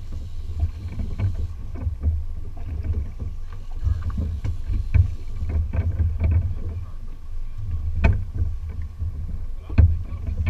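Wind and water noise aboard a small fishing boat at sea: a steady, uneven low rumble, broken by scattered sharp knocks, the strongest about eight seconds in and another near the end.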